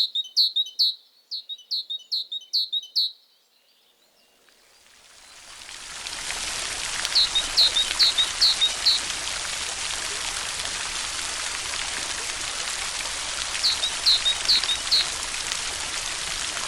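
A small bird chirping in quick runs of repeated high notes, about three a second, which stop after about three seconds. Steady rain hiss then fades in and holds, with two more short runs of chirps over it.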